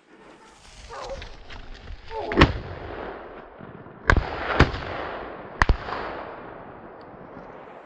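Gunshots from a hunting shotgun: about five sharp reports between two and six seconds in, the last two close together, each trailing off in a long echo.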